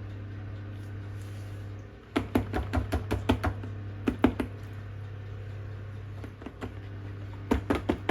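Two runs of quick, sharp knocks, several a second, over a steady low hum; the first begins about two seconds in and the second near the end.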